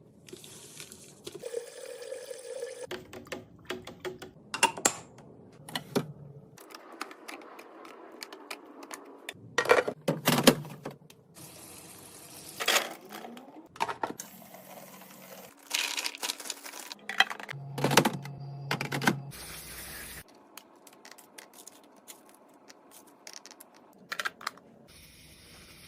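Fridge restocking sounds: a long run of clicks, taps and clatters from containers, lids and packages being handled and set down, with liquid being poured or filled at times.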